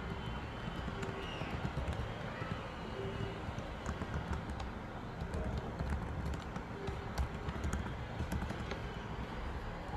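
Computer keyboard keys clicking irregularly as code is typed, more densely in the second half, over a steady low background rumble.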